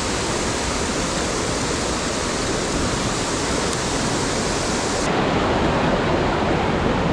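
Mountain stream rushing steadily over rocks. About five seconds in, the high hiss suddenly falls away and the lower rush grows a little stronger.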